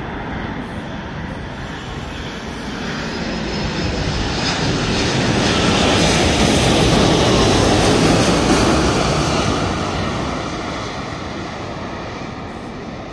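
Boeing 787-10 airliner passing low overhead on landing approach: the roar of its jet engines swells to a peak about six to eight seconds in, with a faint high whine, then fades as it moves away.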